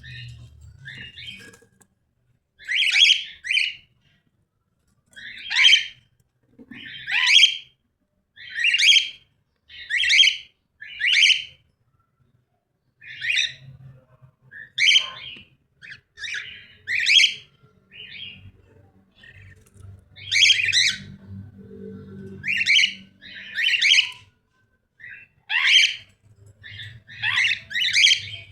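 A cockatiel giving short, loud, repeated calls, roughly one every second or two and often in quick pairs, with brief pauses between runs.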